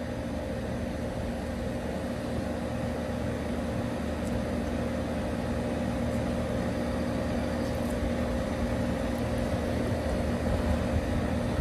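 Air conditioner's outdoor unit running with a steady hum, and a few faint clicks now and then.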